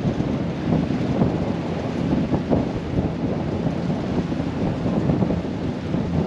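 Wind buffeting the microphone on a moving cruise boat: a steady, uneven low rumble.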